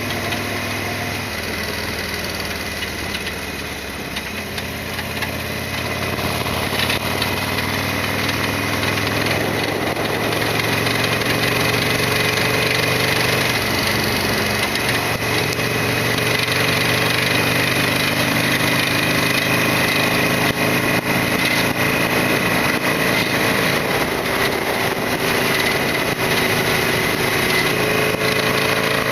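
Harley-Davidson Sportster XL1200R V-twin engine running on the move. Its pitch climbs slowly and steadily from about four seconds in as the bike gathers speed.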